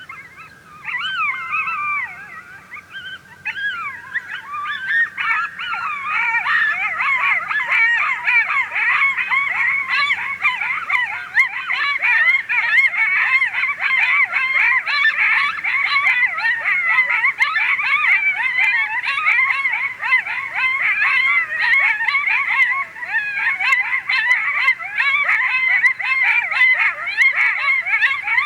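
Coyote group yips and howls: a couple of wavering howls, then a dense chorus of many high, quavering yelps that builds a few seconds in and keeps going.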